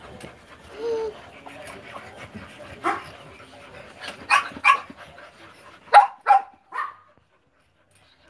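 Pomeranian puppies yapping: about six short, high yips, several in quick pairs, the loudest about six seconds in.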